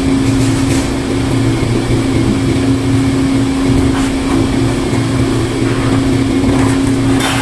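Steady mechanical hum of air-conditioning or ventilation equipment, an even drone with a fixed pitch. A few faint clicks, and a brief rustle near the end.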